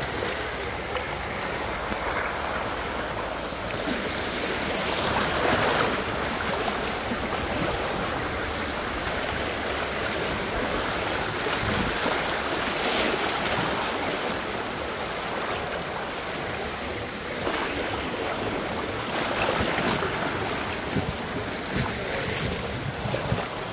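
Rushing river water: a steady wash that swells louder a few times.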